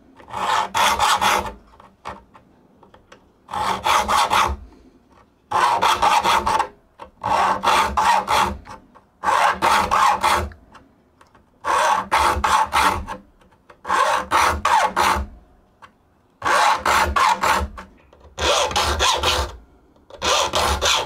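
Triangular saw file rasping across the steel teeth of a Spear & Jackson crosscut hand saw during sharpening. The strokes come in short bursts of a few quick strokes each, about one burst every two seconds, as the file works tooth by tooth along the saw.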